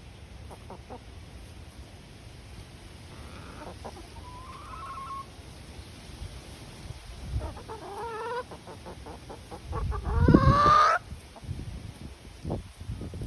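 Hens clucking and calling while feeding, a few scattered calls with a longer rising squawk about ten seconds in, the loudest sound.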